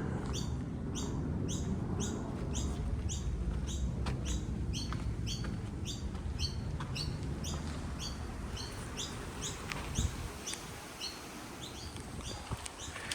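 A bird calling over and over with short, high chirps, each sweeping downward, about two a second in a steady rhythm. A low rumble runs underneath, and a few sharp clicks or knocks come in the second half.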